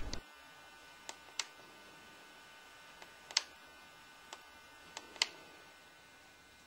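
A few faint, sparse clicks from hands handling a Hitec Eclipse 7 radio-control transmitter; the loudest comes about three and a half seconds in.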